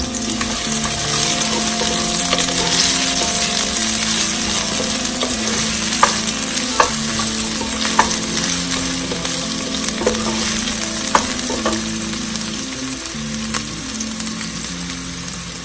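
Chopped onion sizzling in hot olive oil in a kadhai as it is stirred, with a handful of sharp clicks of the utensil against the pan in the middle. The sizzle grows a little quieter near the end.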